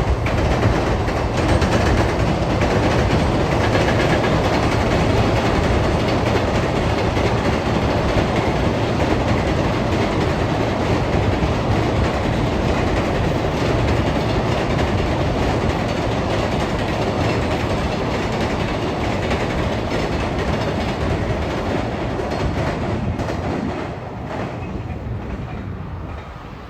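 A freight train hauled by an EF210 electric locomotive passing close by, its wagons rumbling and clattering over the rail joints in a steady run. The sound drops off near the end as the train passes.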